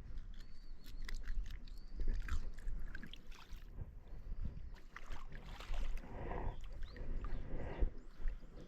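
Irregular knocks and clicks with bouts of splashing water as a freshly caught fish is handled and dispatched aboard a small boat; the splashing is strongest in the second half.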